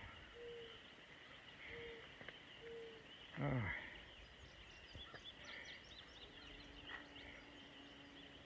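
A man's voice giving one short groan that falls in pitch, about three and a half seconds in, against a faint outdoor background with high, faint chirping near the middle.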